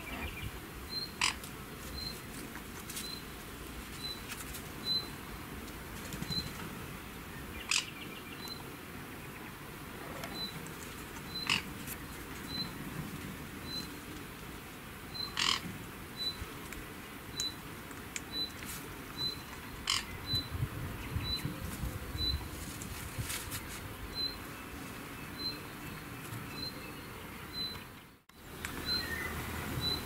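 A short, high chirp repeats steadily, about three every two seconds, over a faint outdoor hiss. A few sharp clicks come now and then, and the sound cuts out briefly near the end.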